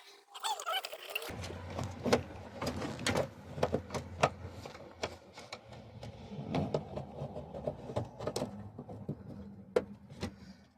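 Hands working on car interior parts, with irregular clicks, knocks and light rattles over a low steady hum that starts about a second in.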